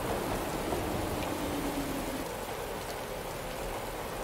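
A steady, even hiss of noise like rain. A faint low held tone slides slightly downward under it and fades out about two seconds in.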